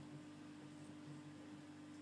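Near silence, with a faint steady low hum.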